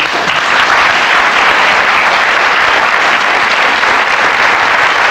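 Studio audience applauding: steady, dense clapping from many hands.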